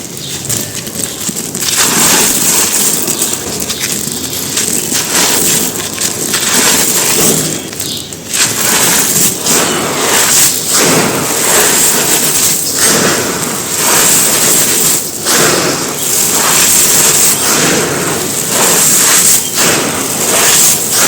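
Dry lumps of set pure cement being crushed and crumbled: dense, continuous crunching with frequent sharp cracks, easing briefly about eight seconds in.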